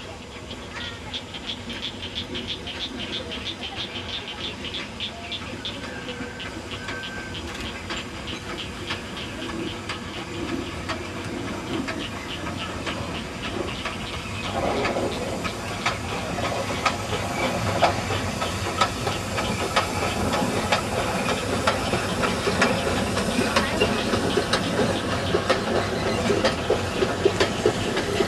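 3 ft 6 in gauge steam tank locomotive working a short passenger train, its exhaust beating in a quick, steady rhythm over a hiss of steam. The sound grows louder from about halfway through as the train draws closer.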